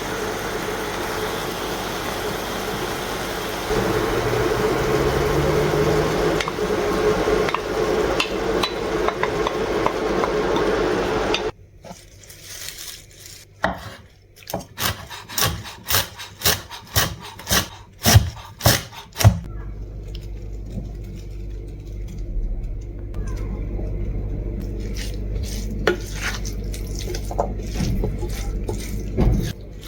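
Cooking in a pot: a steady hiss for about eleven seconds, then a run of sharp clinks and knocks of a utensil against the pot for about eight seconds, then a quieter steady low sound with a few light taps.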